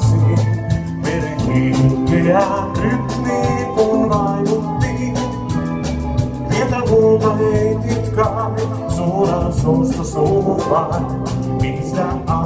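Live band music from an outdoor stage's PA system: a singer over a steady drum beat and bass line.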